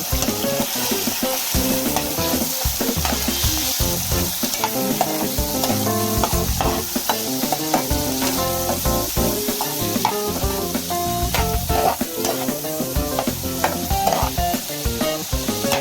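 Pad thai being stir-fried: steady sizzling in the hot pan, with the spatula repeatedly scraping and knocking against it. Faint background music plays underneath.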